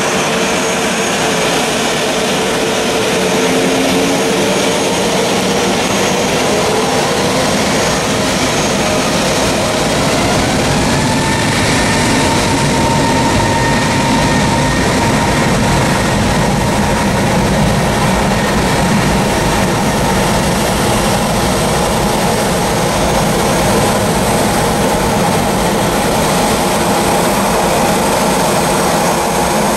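Airbus A321neo's CFM LEAP-1A turbofan engines spooling up to takeoff thrust for the takeoff roll. A whine rises in pitch about a quarter of the way in, then the engine noise holds steady and loud.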